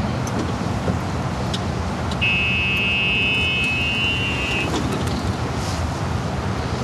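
Steady low outdoor rumble with a few faint clicks. About two seconds in, a steady high tone starts, holds for about two and a half seconds, then stops.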